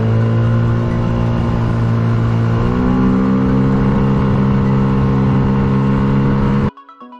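Tohatsu 9.8 hp outboard motor running with the boat under way, its pitch stepping up a little under three seconds in. It cuts off abruptly near the end, giving way to background music.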